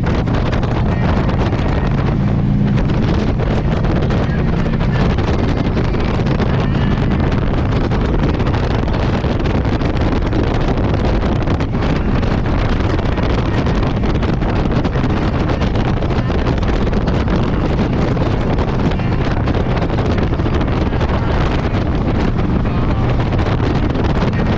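Steady wind rush on the microphone over a touring motorcycle's engine running at highway cruising speed.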